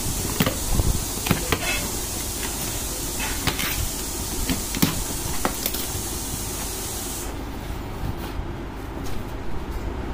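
A cardboard shipping box being opened by hand: flaps pulled back and cardboard scraping and crinkling, with scattered sharp clicks and knocks, busiest in the first couple of seconds. A steady high hiss runs underneath and cuts off suddenly about seven seconds in.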